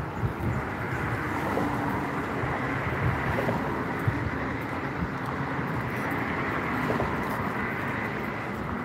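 Steady rumble of road traffic crossing the highway bridge alongside.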